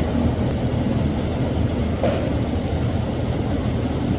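A single short, sharp pop about halfway through, over a steady low rumble.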